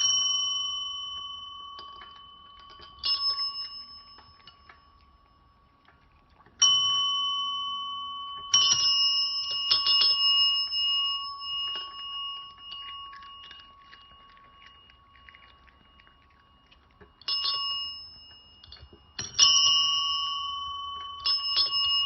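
A small metal bell struck again and again at uneven intervals, about eight times, each clear ring dying away slowly. There is a quiet pause of a few seconds in the middle.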